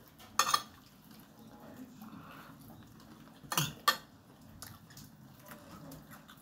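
Metal cutlery clinking against a glass plate: one clink about half a second in, then two more close together a little past the middle as the utensil is laid down on the plate's rim.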